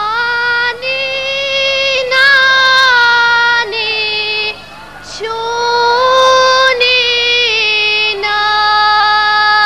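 A young female singer singing an Albanian folk song solo, in long held notes with ornamented turns and slides. She pauses for breath briefly a few times and for longer about halfway through.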